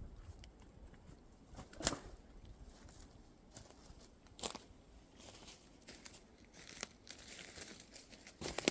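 Footsteps on the forest floor: irregular steps crunching and crackling through dry leaves and twigs, with a couple of sharper snaps and a denser run of crunching near the end.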